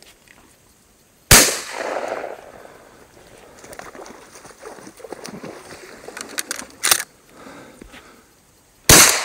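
Shotgun firing at ducks: two loud shots about eight seconds apart, each with a long echoing tail, and a shorter sharp crack between them.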